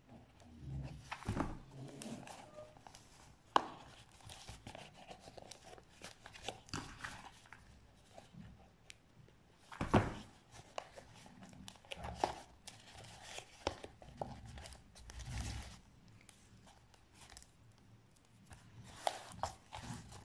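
Paper and cardboard being handled and folded by hand around a cardboard tube: intermittent rustling and crinkling with scattered light clicks, and a couple of sharp knocks, the loudest about ten seconds in.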